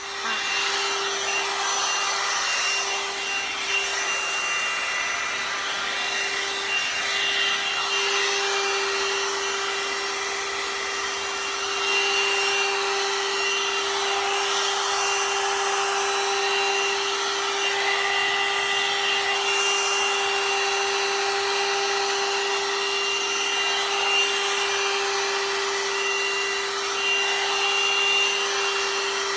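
Hot-air styler brush (one-step hair dryer and brush) switched on, its fan motor running with a steady whine over the rush of blowing air.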